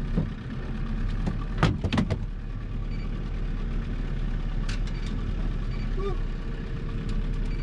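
Boat motor running steadily at trolling speed, with a quick cluster of sharp knocks a little under two seconds in and another single knock later. A few faint short beeps are heard.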